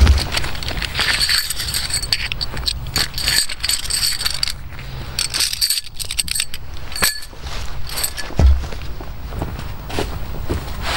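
Rustling with a run of small clicks and clinks as camping gear is handled while a hooped bivi bag is pitched, with heavier thumps at the start and about eight and a half seconds in.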